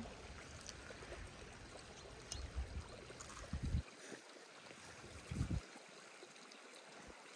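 A stream running softly and steadily. A few light clicks of metal tongs against dishes and a couple of dull low thumps sit over it as food is served.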